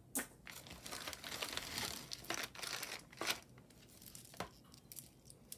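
Crinkling of a small plastic bag being handled and opened, busiest in the first few seconds and fading after, with a few sharp ticks.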